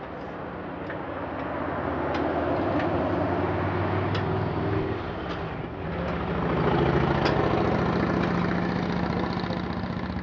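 An engine running steadily, growing louder over the first few seconds, dipping briefly about five seconds in, then louder again and slowly easing off, with a few light clicks over it.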